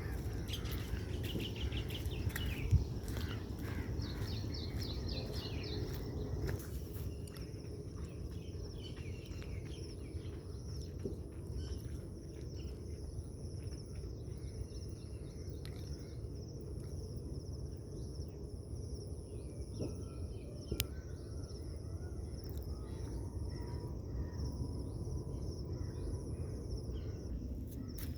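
Outdoor natural ambience: birds chirping on and off, and a high-pitched insect-like buzz coming in pulses of about a second each, over a steady low rumble. A single sharp thump about three seconds in.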